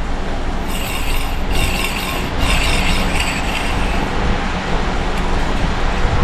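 A car's engine-driven air-conditioning running, with a mechanical rattling noise that surges four times in quick succession over the first three and a half seconds and then settles back into a steady running sound. It is the fault noise that appears when the A/C is switched on.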